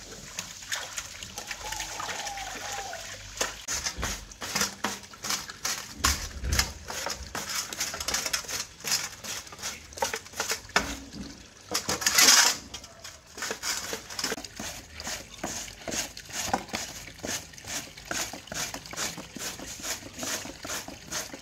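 Peeled cassava root grated by hand on a flat metal grater over a steel pot: rasping strokes at a steady rhythm, two to three a second, starting a few seconds in and running on. About halfway through there is one louder, longer rasp.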